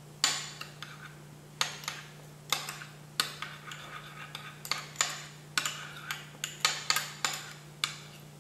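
A utensil clinking and knocking against a dish as a thick chili bean sauce mixture is stirred. The clicks come unevenly, about two a second, over a low steady hum.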